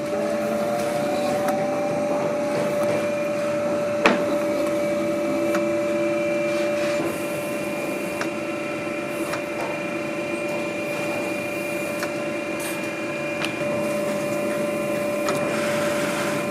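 Electric leather skiving machine running with a steady motor hum and whine while leather is fed past its round bell knife to thin the edges. There is a single sharp click about four seconds in, and faint ticks throughout.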